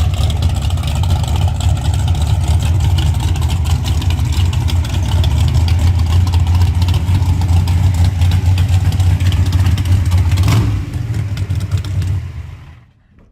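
Loud car engine running with a rough, rumbling exhaust. There is a single sharp knock about ten and a half seconds in, and the sound drops away to near silence just before the end.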